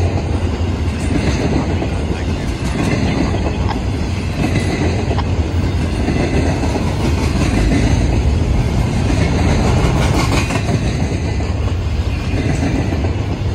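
Freight train of loaded intermodal well cars rolling past close by: a steady, loud rumble and rattle of steel wheels on the rails.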